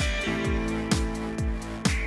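Background music with a steady beat of about two low thumps a second under sustained notes.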